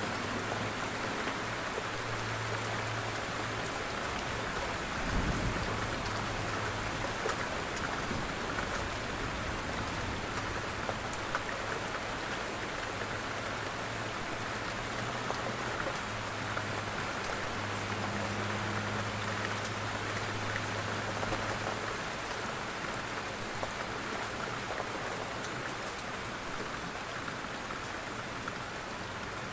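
Heavy rain falling steadily, a dense even hiss of drops. About five seconds in there is a brief low thump.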